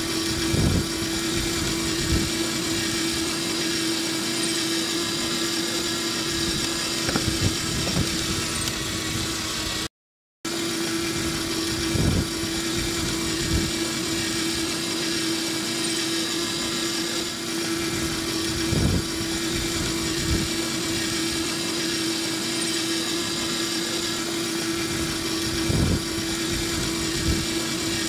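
Electric drive motor and gearbox of a ride-on toy Mercedes whining steadily at an even pitch as the little car rolls along, with a few dull thumps. The sound cuts out for about half a second about ten seconds in.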